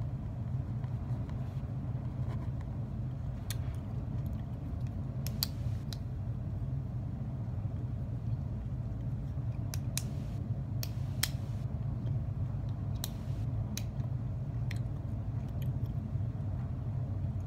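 Sparse, irregular sharp clicks and taps, about a dozen, over a steady low hum.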